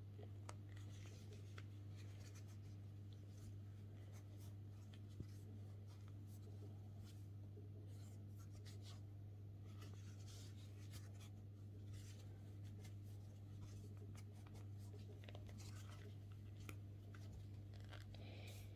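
Faint scratching and rustling of a crochet hook drawing T-shirt yarn through stitches, in many short irregular strokes, over a steady low hum.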